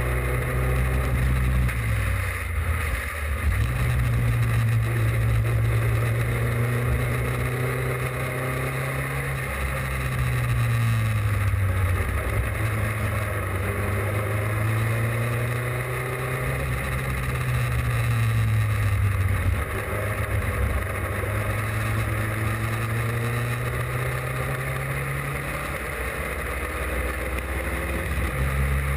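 Austin Seven race car's small four-cylinder side-valve engine running hard at racing speed, heard close from the car's body. The engine note dips and climbs back several times, with a steady rush of noise over it.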